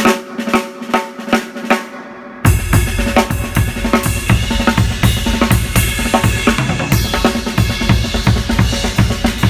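Drum kit played fast. For about the first two and a half seconds there are quick drum strokes with no bass drum. Then the full kit comes in, with pounding bass drum and cymbal wash under a dense run of snare and tom hits.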